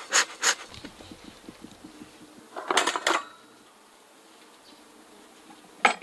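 Bee smoker's bellows being pumped to revive a smoker that has gone out: a few short puffs of air at the start and another burst about three seconds in. Under it a faint steady hum of honey bees, and a sharp click near the end.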